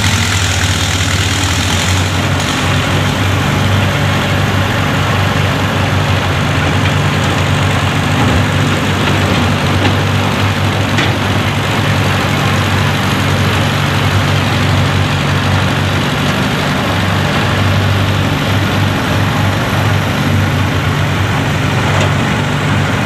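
Excavator's diesel engine running steadily at a constant speed, a low even drone.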